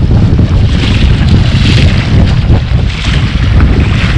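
Strong wind buffeting the microphone as a heavy, steady rumble, with a rushing water-like hiss that swells and fades every second or two.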